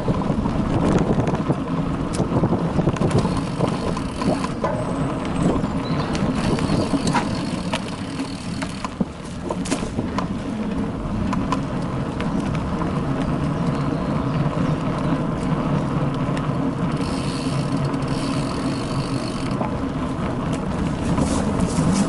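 Bicycle riding over a bumpy dirt forest trail, heard from an action camera mounted on the bike. A steady low rumble of tyres and wind carries frequent short clicks and rattles from the bumps, easing briefly about nine seconds in.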